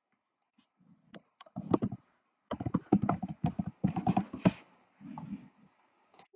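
Computer keyboard typing: a quick run of keystrokes as a short word is typed, bunched between about one and four and a half seconds in.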